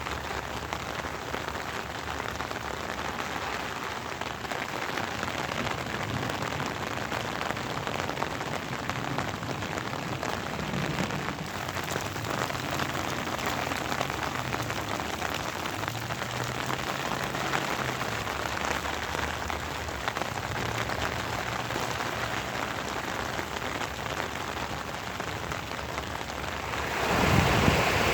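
Steady rain falling, an even hiss of drops on surfaces; about a second before the end it suddenly swells louder.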